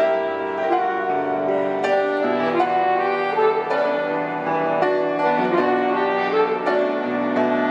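Grand piano and saxophone playing together live, the saxophone holding a melody in long notes over piano chords.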